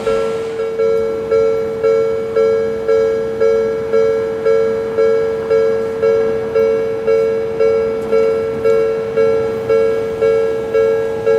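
Japanese level crossing warning bell ringing in an even, two-pitched ding, about two strikes a second, signalling that a train is approaching.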